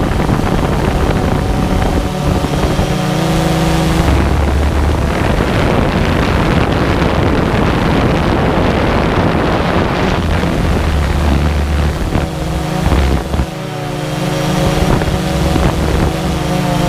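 DJI Phantom 2 quadcopter's four brushless motors and propellers humming in flight, the pitch shifting a little about two thirds of the way through. Heavy wind buffets the microphone, strongest in the middle.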